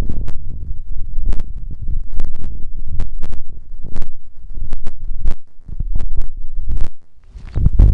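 Wind buffeting a camera microphone: a loud, uneven low rumble that swells and drops, with scattered sharp clicks. It briefly eases about seven seconds in.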